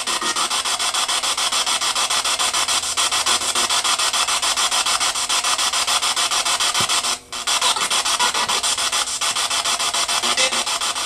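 Spirit box sweeping through radio stations: a steady hiss of radio static chopped into rapid, even pulses, with a brief dropout about seven seconds in.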